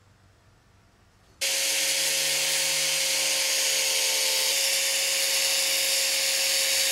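Quiet for about the first second and a half, then an angle grinder starts up sharply and runs with a steady whine, shaving the corners of a clear acrylic sheet down to a radius.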